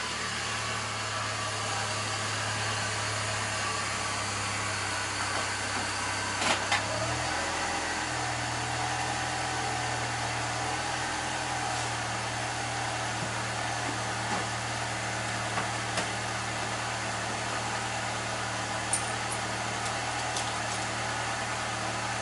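A car engine idling steadily, its low hum dropping slightly in pitch about seven seconds in, with a few short clicks over it.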